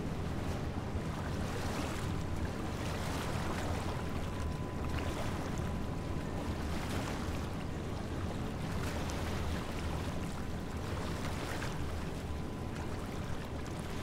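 Small waves washing steadily onto a sandy beach, with wind and a continuous low rumble underneath.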